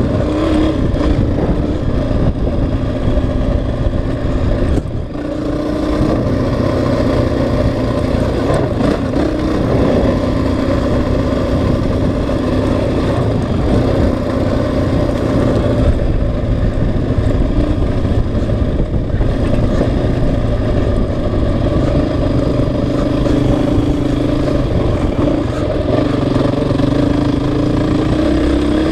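Honda CRF450X dirt bike's single-cylinder four-stroke engine running under way, its pitch rising and falling with the throttle. The engine eases off briefly about five seconds in, then picks up again.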